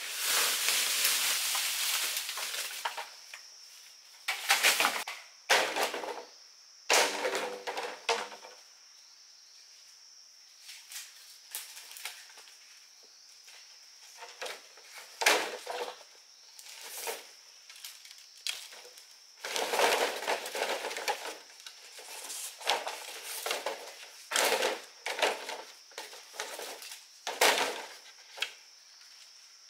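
Cut bamboo poles being dragged through leafy undergrowth and then handled and stacked, with rustling leaves and hollow wooden knocks and clatters as the poles strike one another and the ground; one knock near the start rings briefly.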